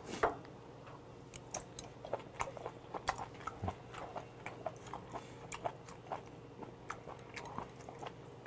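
A person chewing a chewy piece of boiled monkfish: soft, wet mouth clicks and smacks, a few a second, with one sharper click just after the start.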